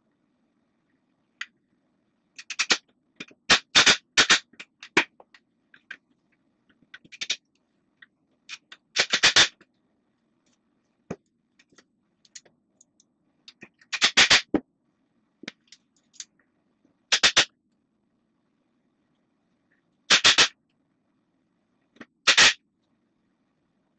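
Cordless drill driving screws into wooden stool legs, sped up: about a dozen short, loud bursts, bunched in the first few seconds and then one every three seconds or so, with light handling clatter in between.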